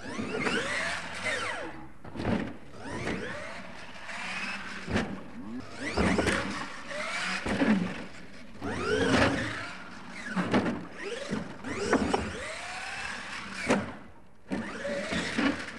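Radio-controlled monster trucks' motors whining up and down in pitch as they rev again and again, with sharp thuds of the trucks landing, flipping and crashing on the dirt and ramps.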